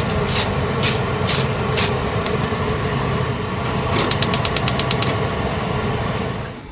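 Wooden salt grinder twisted over a saucepan, giving a series of crunching clicks about every half second at first. A rapid run of about ten sharp clicks follows a few seconds later, over a steady background hum.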